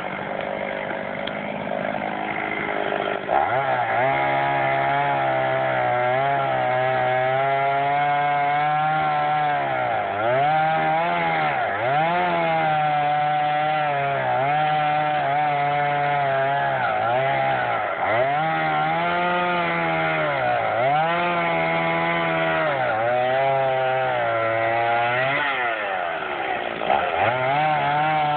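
Two-stroke chainsaw cutting wood. It goes to full throttle about three seconds in, and then its engine pitch dips again and again as the chain bogs under load and recovers.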